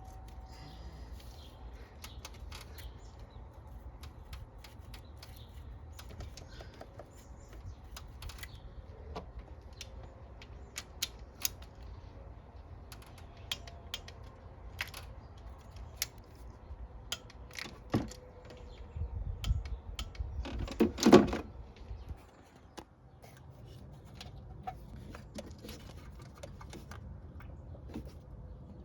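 Hand tools and small metal parts clicking and tapping irregularly, with a louder clatter about 21 seconds in.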